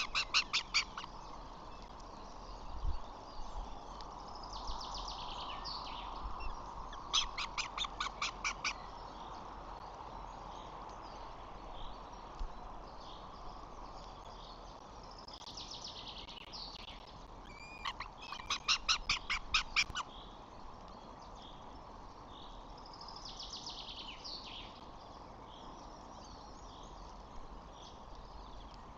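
Birds calling: three bursts of fast, evenly repeated high notes, each lasting about a second and a half, with shorter falling calls between them, over a steady outdoor hiss.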